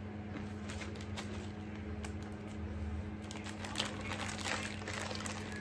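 Soft, irregular crinkling and clicking, busiest in the second half, over a steady low hum.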